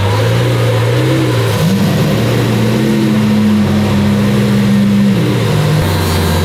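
Lamborghini Aventador SVJ's V12 engine running at idle. It is blipped up about a second and a half in, held at the higher revs for a few seconds, and drops back to idle near the end.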